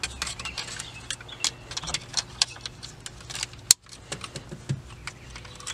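Plastic centre-console trim and its wiring connectors being handled, making a run of light clicks and rattles, with one sharp click a little past the middle.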